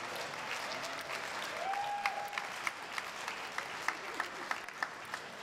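Comedy club audience applauding after a punchline; the dense clapping thins out in the last couple of seconds to a few separate claps at about three a second.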